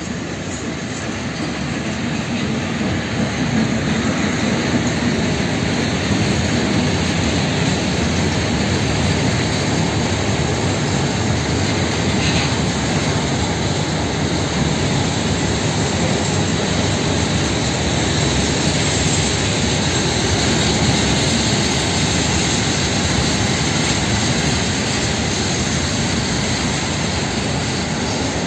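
PKP Cargo ET22 electric freight locomotive running past, followed by a long train of open freight wagons rolling by with a steady rumble of wheels on rail. The noise grows over the first few seconds as the train comes close, then holds level.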